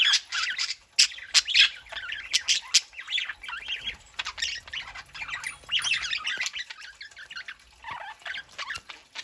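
Pet budgerigars chattering and squawking: a dense run of quick chirps and sharp calls, busiest in the first few seconds and thinning out later.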